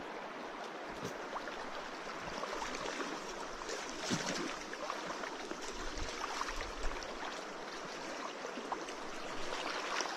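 Water sloshing and swishing around the legs of people wading through a stream, with a few louder splashes.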